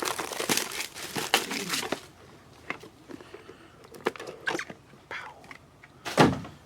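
Plastic wrapping crinkling and tearing as a sealed trading card hobby box is opened, followed by a few light handling clicks and one sharp thump near the end.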